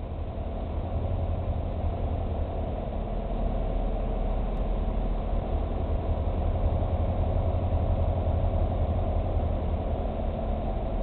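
Tractor-trailer's diesel engine running at low speed, heard from inside the cab: a steady low rumble that grows a little louder over the first few seconds.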